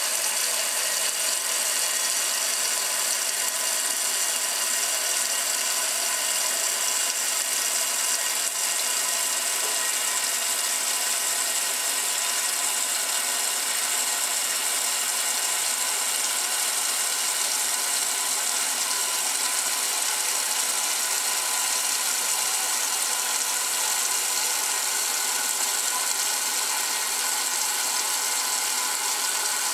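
1968 Kenmore top-loading washer running in the agitate part of its wash cycle: the drive runs steadily while the agitator churns the load in the water.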